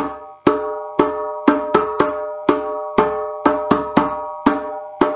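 Remo hand drum struck by hand in the repeating 'went on vacation' rhythm: three even strokes then two quick ones, about five strokes every two seconds, each ringing briefly. The last stroke rings out near the end.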